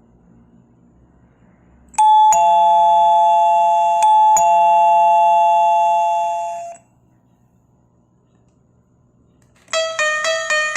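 Doorbell chime ringing "ding-dong" twice, each a higher note followed at once by a lower one, the tones held ringing and then cut off. Near the end a faster doorbell melody of many short stepping notes begins.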